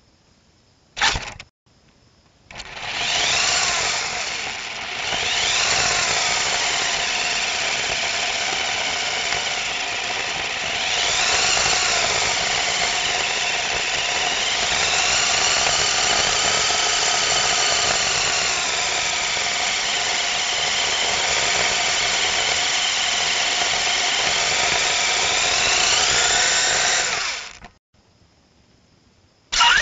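Parrot Jumping Sumo minidrone's electric wheel motors whining as it drives, the pitch rising and falling with its speed. The whine starts about two and a half seconds in and cuts off a couple of seconds before the end, with a short click about a second in.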